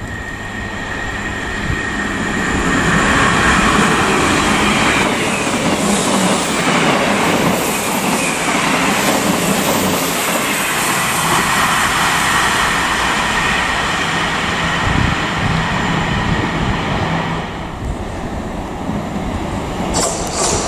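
South Western Railway passenger trains running through at speed. First a Class 159 diesel multiple unit under power, then a Desiro electric multiple unit passing close with steady wheel-on-rail noise and a high whine, and near the end a Class 444 approaching.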